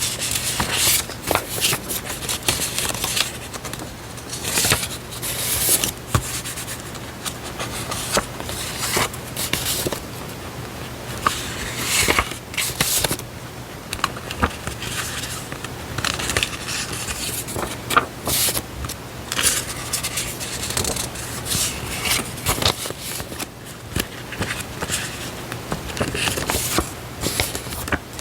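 Paper stationery and diary-decorating items being handled close to the microphone: irregular rustling, crinkling and scraping of paper with frequent short clicks.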